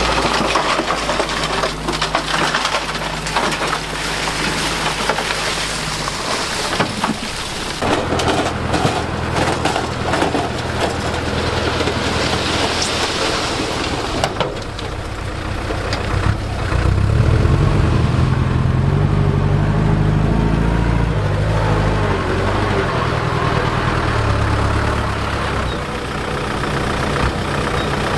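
Heavy construction machine's diesel engine running under load, with crunching and clattering in the first half. About two-thirds through, the engine pulls harder and louder for several seconds, then eases back.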